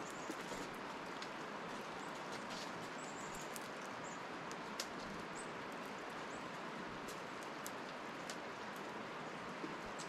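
Squirrel eating from a dish of birdseed: scattered small sharp clicks and cracks of seeds being handled and bitten. Behind them is a steady rushing outdoor hiss, with a few faint high bird chirps.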